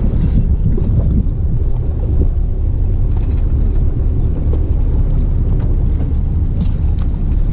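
Wind buffeting the microphone on a small boat at sea: a steady low rumble, with a couple of faint clicks near the end.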